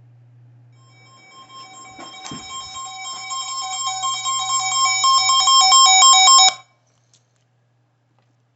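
Weather alert radio's alarm sounding: a rapid electronic beeping that grows steadily louder for about five seconds and then cuts off suddenly, the radio's signal of an incoming severe thunderstorm warning.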